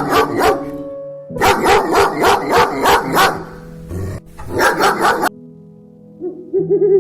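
Dog barking in three quick runs of sharp barks, about five a second, over steady background music. A different, hooting call starts near the end.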